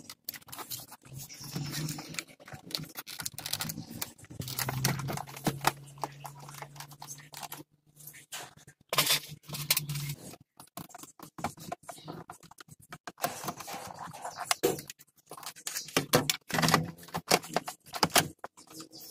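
Suzuki Mehran's plastic instrument cluster and dashboard bezel being handled and pushed into the dash: irregular plastic scraping, rubbing and clicks. A low steady hum runs for several seconds in the middle.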